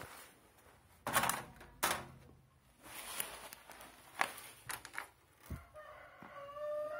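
A run of light clicks and knocks from handling a metal stovetop oven and its door. Near the end a rooster starts crowing.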